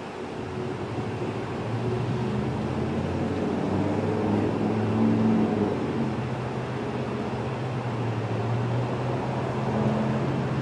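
Low engine hum of a motor vehicle, growing louder about two seconds in and shifting slightly in pitch.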